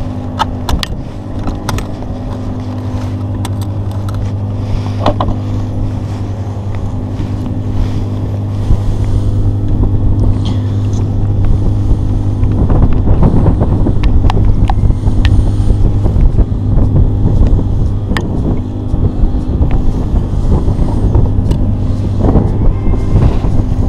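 Wind buffeting a body-worn camera microphone, growing rougher and louder about halfway through, over a steady low drone. Scattered clicks and rustles come from jacket sleeves and tackle being handled close to the microphone.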